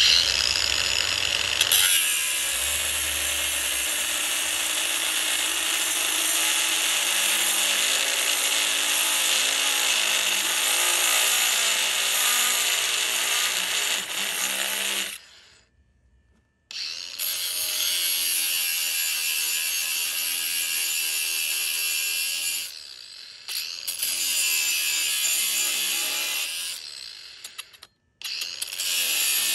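Power tool running steadily under load against the work, in long continuous stretches. The sound stops abruptly twice.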